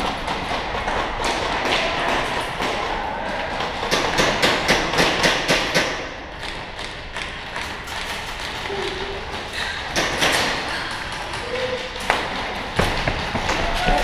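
Airsoft guns firing, a sharp crack for each shot, with a quick string of shots about four seconds in and more scattered shots later.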